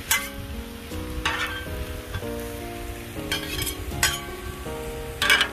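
Beef, onions and peppers frying gently on a Blackstone gas griddle turned down low, with metal spatulas scraping the steel cooktop about five times, the scrapes the loudest sounds.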